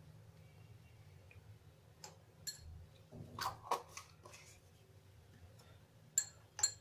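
A spoon clicking and clinking against a glass a few times as honey is added to the tea: a couple of light taps, a short cluster of clinks in the middle, and a few sharper taps near the end.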